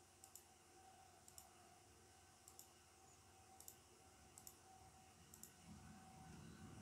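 Faint computer mouse clicks: short paired ticks roughly once a second as objects are selected one after another, over a quiet low hum. A low rumble builds near the end.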